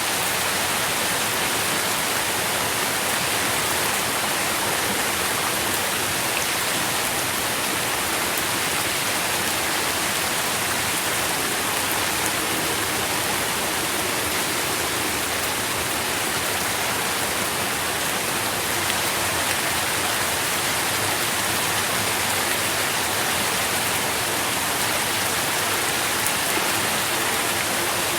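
Steady rain falling, a dense, even hiss with no pauses or single drops standing out.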